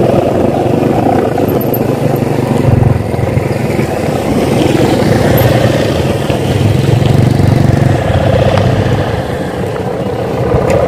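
Sendaren kite hummers, vibrating ribbons strung on bows fitted to bapangan kites aloft, droning together in the wind: a steady, loud, low buzzing hum that swells and eases a little.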